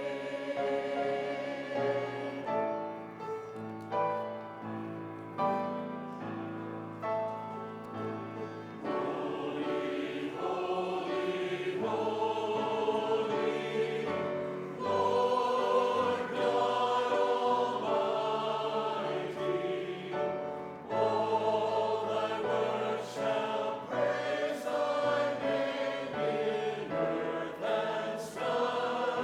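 Church congregation or choir singing a hymn with instrumental accompaniment, sustained notes changing every second or so, growing fuller and louder about nine seconds in.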